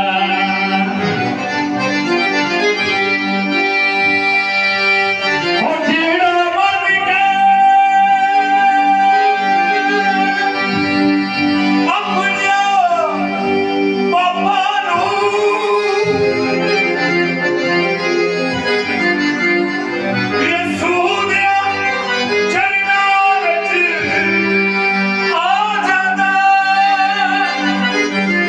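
A man singing a worship song through a microphone, accompanied by an electronic keyboard holding sustained chords.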